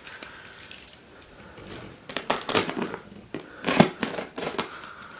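Scissors cutting through packing tape and plastic wrap on a cardboard parcel, with crinkling and crackling of the plastic. The loudest crackle comes a little under four seconds in.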